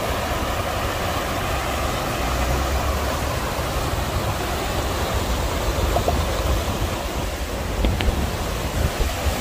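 Rain-swollen river rushing: a steady noise of fast-flowing floodwater with a low rumble underneath.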